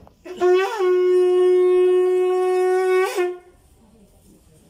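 Conch shell blown in one long, steady note of about three seconds, with a brief upward flick in pitch as it starts and again just before it stops.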